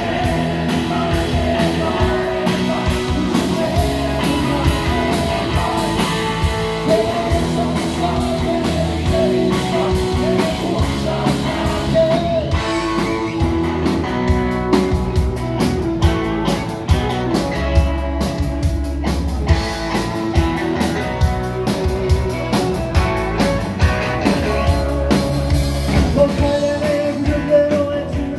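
Live rock band playing: electric guitars, bass guitar, drums and organ, with a man singing the lead vocal over a steady beat.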